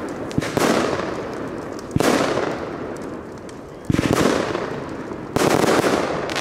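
Weco 'Stars of the Night' category 3 firework battery firing shot after shot: four sharp bangs about one and a half to two seconds apart, each trailing off in a hiss that fades over a second or more.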